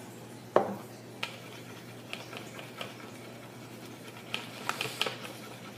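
A sharp click about half a second in, then scattered light clicks and taps as slime is worked with a utensil on a disposable plate.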